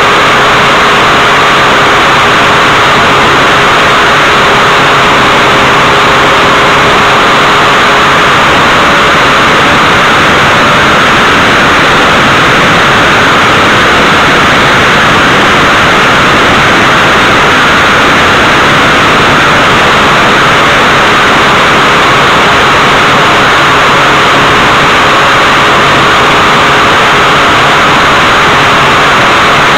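Calmato ultralight aircraft in cruise flight, heard from inside the cabin: loud, steady engine and airflow noise with a faint, constant engine tone underneath.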